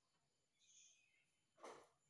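Near silence, with one brief faint sound near the end.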